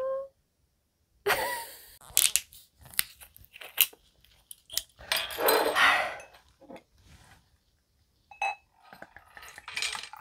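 A glass soju bottle and a beer can handled on a table: scattered clicks and crackles, with a louder crackling stretch around the middle, then soju glugging into a glass near the end.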